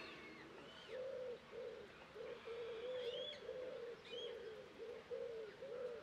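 A pigeon cooing over and over in short low notes, about two a second, starting about a second in. A few brief high chirps from a small bird come in around three and four seconds in.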